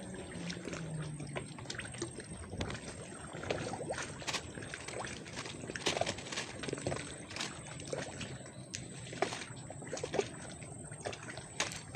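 Water sloshing and lapping, with many irregular small clicks and knocks.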